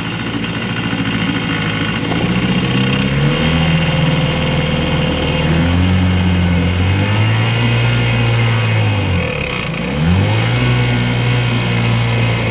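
A 50-year-old 4-horsepower outboard motor throttled up from idle. The engine speeds up over the first few seconds and then runs steadily under way, dipping briefly and picking back up about nine to ten seconds in.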